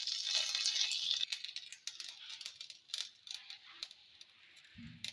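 Mustard seeds and curry leaves spluttering in hot oil in a kadai: a sizzle for about the first second, then scattered sharp pops.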